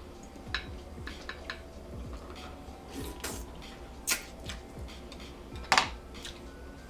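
Close-up eating sounds: fingers working a mussel in a glass bowl of butter sauce and eating it, a scatter of small clicks and wet smacks with one louder sharp sound near the end.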